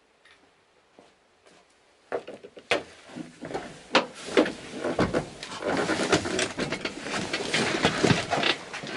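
Faint clicks, then from about two seconds in a busy run of knocks, clatter and rustling as someone climbs back into the cab of an IFA W50 truck carrying a handful of steel sockets.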